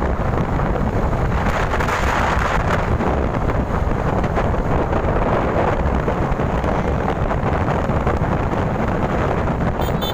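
Wind buffeting the microphone while riding a scooter at road speed: a steady, heavy rushing noise with no pauses.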